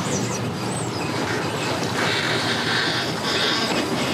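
Pickup truck hauling a boat on its trailer up a wet launch ramp, engine running steadily under load. A louder hissing rush starts about two seconds in as the hull and trailer come up out of the water.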